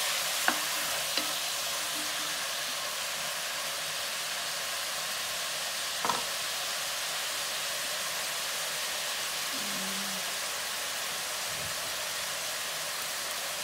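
Chopped onions frying in oil in a nonstick pan, a steady sizzle. A wooden spatula knocks lightly against the pan a couple of times near the start, with another knock about six seconds in.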